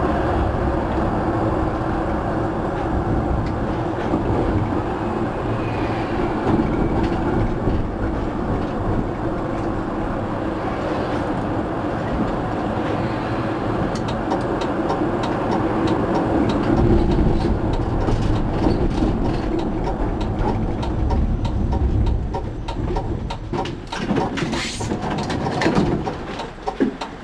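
EGT6 tram running on street track, heard from the driver's cab: a steady rumble of wheels on rail and running gear. Near the end the rumble gets quieter and uneven, with a run of short clicks and a brief high squeal.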